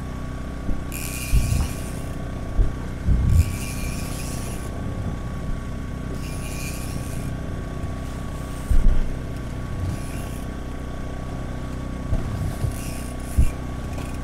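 A boat's motor drones steadily underneath. Hissing splashes of water come every second or two, with a few dull thumps against the hull, the loudest about nine seconds in.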